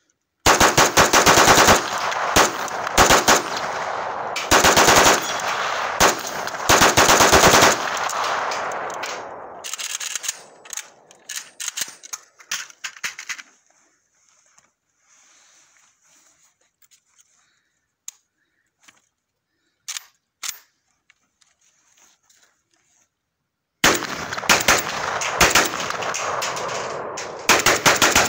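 AK-pattern rifle bump-fired in long rapid strings of shots. The shooting stops for about fourteen seconds, with only scattered clicks and a couple of single sharp reports, then resumes near the end.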